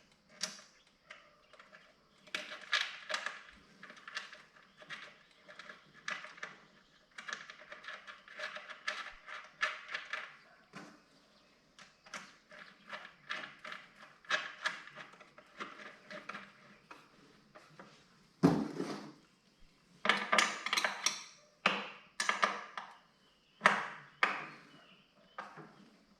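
Hand-tool work on metal: many short, irregular clicks and scrapes, a few a second, as quarter-inch 1/4-20 screws are turned in to fasten the hopper. Louder clusters of clicks come near the end.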